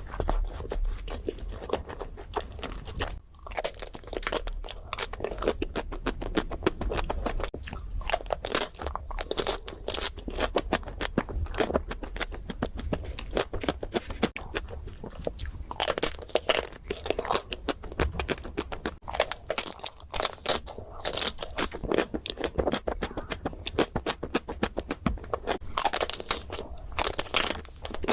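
Close-miked eating: rapid crunching and chewing, with crisp cracks of biting into crunchy desserts such as chocolate coatings, continuing without a break.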